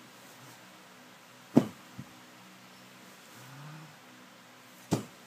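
A few sharp knocks over quiet room tone: a loud one about a second and a half in, a softer one just after it, and another near the end.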